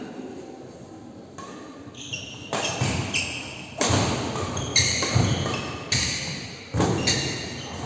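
Badminton rally on an indoor court: rackets hitting the shuttlecock with sharp, echoing hits about a second apart, along with players' footfalls and short high squeaks from their shoes on the court.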